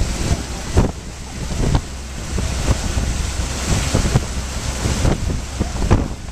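Floodwater churning and splashing in the wake of a truck driving through it, with wind buffeting the microphone in repeated thumps over a steady low rumble.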